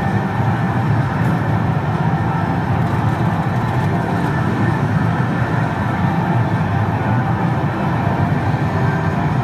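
Continuous loud din of a pachinko and pachislot parlor, with many machines' sounds blended into one steady wash, heard muffled with little treble.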